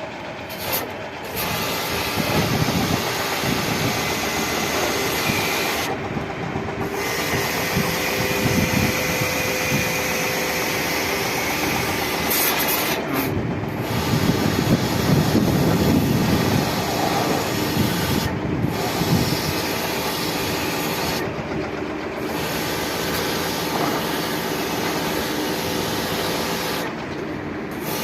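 Hard spray of water hissing steadily while cleaning an air-conditioner outdoor unit, cutting off briefly about five times, with surges of low rumble between.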